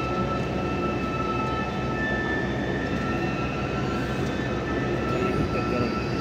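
Steady drone of running industrial machinery: a low hum with several steady high-pitched whining tones on top, unchanging throughout.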